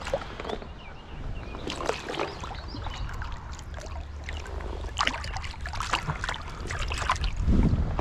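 Water splashing and sloshing in uneven bursts as a freshly caught fish is rinsed in the shallows at the river's edge, with wind rumbling on the microphone.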